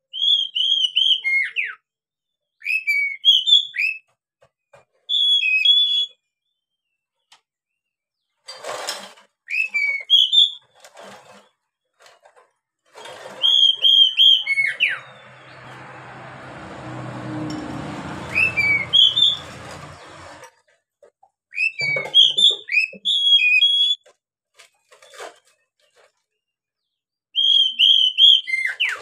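Caged Oriental magpie-robin singing: short, loud, clear whistled phrases with quick pitch flicks, repeated in bursts with pauses between. For several seconds near the middle, a rushing noise with a low hum runs beneath the song.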